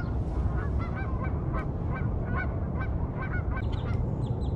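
Geese honking nearby: short, repeated calls, about three a second, over a steady low rumble.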